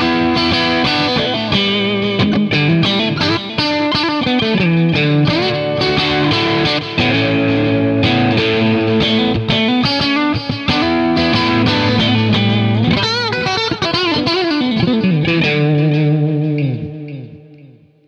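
Electric guitar with copies of DiMarzio Cruiser rail pickups, played as fast picked single-note lines with string bends about two-thirds of the way through. It ends on a held note that dies away over the last two seconds.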